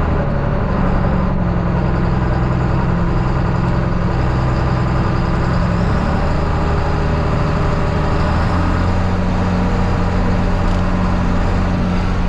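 Farm tractor engine running steadily while pulling a grain cart across the field, its note shifting slightly about two-thirds of the way through.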